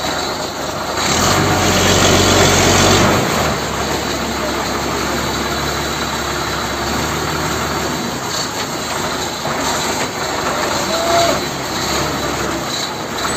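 A motor runs steadily, louder for about two seconds near the start, with a low hum under a rougher mechanical noise.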